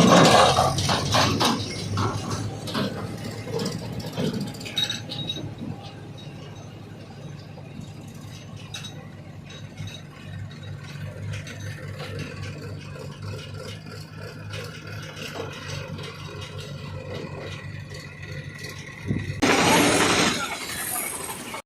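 Diesel engine running steadily at low revs, with scattered metallic clinks and rattles; near the end a loud rush of noise lasting about two seconds.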